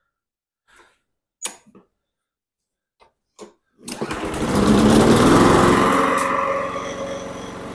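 A few faint clicks, then one pull of the recoil starter and the primed Briggs & Stratton 6 hp push-mower engine starts about four seconds in, revs up and settles to a steady run.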